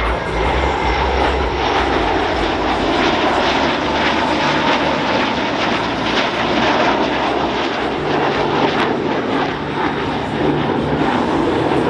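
Engines of a formation flyby of two EA-18G Growler jets and an F4U Corsair: a loud, steady rush of engine noise with crackle through the middle.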